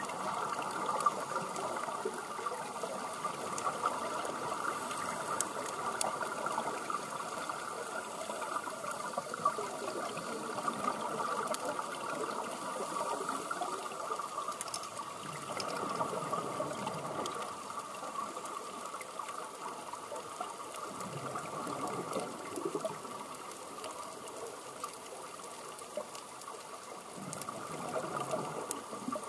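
Underwater sound of scuba divers breathing through regulators: a steady hiss with swells of exhaled bubbles every several seconds.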